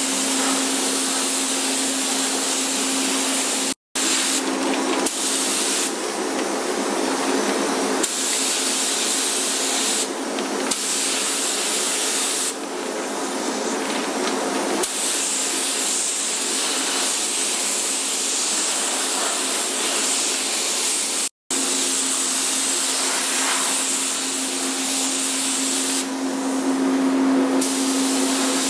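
Compressed-air paint spray gun hissing steadily as it sprays, over a steady low hum. The sound cuts out for an instant twice.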